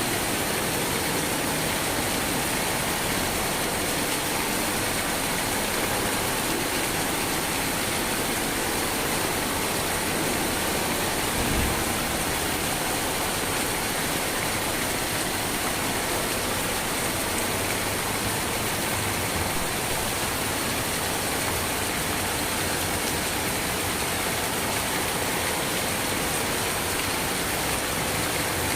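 Steady rain falling, an even unbroken hiss, with a brief low thump about twelve seconds in.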